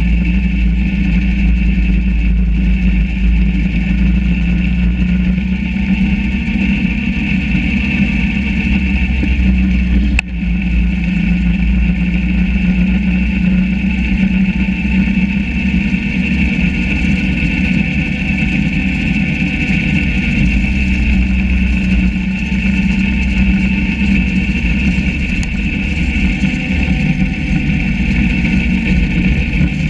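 Yamaha SRV 540 snowmobile's two-stroke engine running steadily, with a brief break about ten seconds in.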